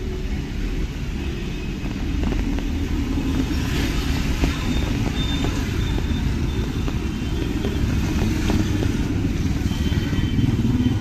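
Road traffic: car and motorcycle engines running, with a steady low rumble.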